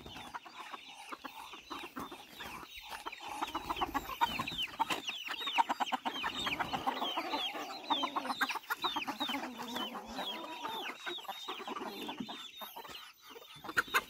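A flock of chickens clucking and calling as they are let out of their coop, with many quick, high calls that drop in pitch, busiest through the middle.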